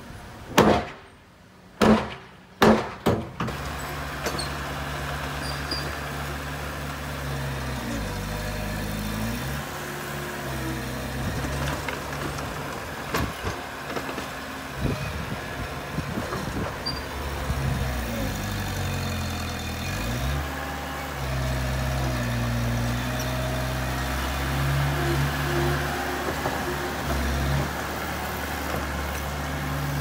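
Diesel engine of a Komatsu mini bulldozer running steadily under load as it pushes rock and soil. Its pitch dips and recovers twice, once about a third of the way in and again past halfway. A few loud knocks come in the first three seconds.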